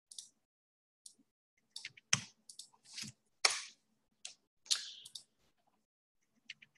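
Irregular clicks of a computer mouse and keyboard, about a dozen short sharp taps spread across a few seconds, from copying commands and pasting them into a terminal.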